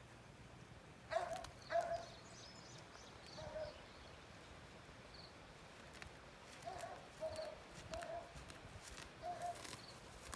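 Short animal calls repeated at irregular intervals, often in pairs, with faint high bird chirps between them.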